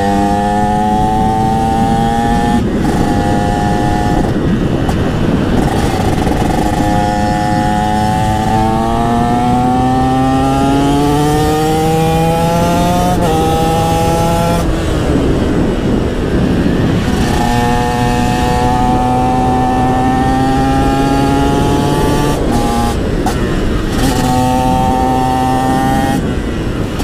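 A TM SMR 125 supermoto's engine is accelerating hard and shifting up again and again, its pitch climbing and then dropping at each gear change. Wind rushes steadily over the microphone.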